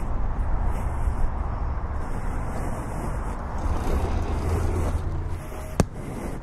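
Steady low rumble and hiss of outdoor background noise, easing off near the end, with one sharp click a little before the end.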